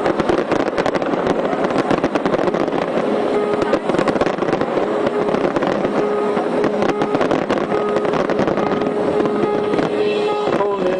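Fireworks crackling and popping in rapid, dense succession over the loud din of a crowd, with a steady droning tone underneath.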